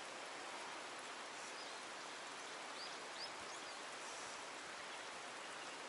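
Faint, steady hiss of flowing water, with a few brief high chirps about three seconds in.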